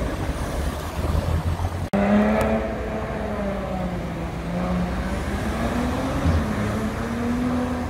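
Car engine sound in street traffic. A car's engine fades as it pulls away, then after a sudden cut an engine runs steadily at low revs, its pitch wavering only slightly.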